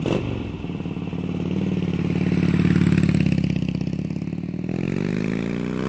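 Motorcycle engine running with rapid, even firing pulses, its pitch rising as it revs up near the end.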